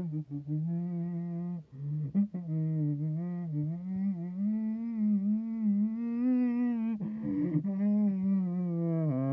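A person humming a slow, wavering tune, pitch drifting up through the middle, with two short breaks, about two seconds in and about seven seconds in.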